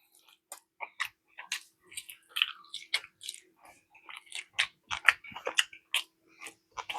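A person chewing food close to the microphone: irregular wet smacks and mouth clicks, several a second.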